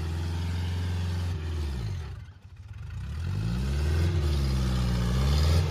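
Massey Ferguson tractor's diesel engine labouring while pulling a chain-hitched load, its revs sagging almost to nothing about two seconds in, then climbing back up and holding steady.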